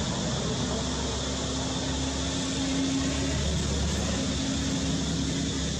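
A motor droning steadily over a constant background hiss, its hum dropping out briefly a little past the middle and then returning.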